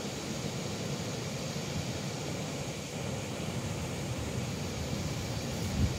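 Steady rushing outdoor noise with a fluttering low rumble, like wind on the microphone, and a soft low thump near the end.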